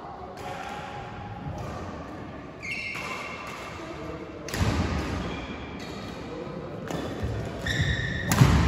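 Sounds of play on an indoor court in a large echoing hall: short sneaker squeaks on the floor, and two heavy thuds, one about halfway through and a louder one near the end.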